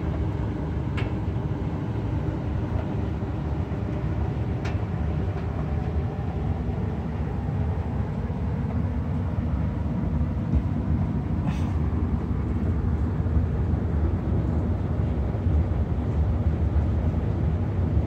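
Arcoaire gas furnace running: a steady low rumble, with three faint clicks along the way.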